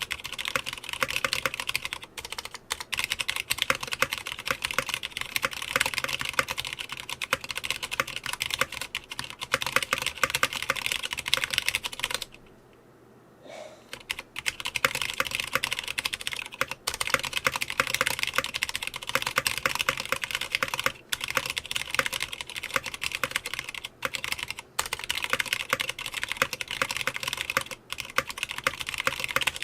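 Fast continuous typing on a Clueboard 66% mechanical keyboard with stock Cherry MX Red linear switches, a dense stream of key clacks. There is one short pause of about a second and a half near the middle.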